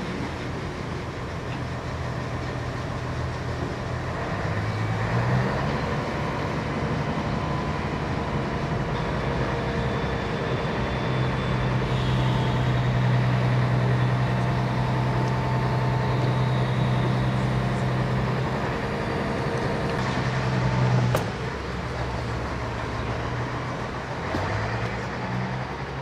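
Class 03 diesel shunter's engine running, its note stepping up a few seconds in and holding louder through the middle. About 21 seconds in it drops back with a sharp clank, then rises again near the end.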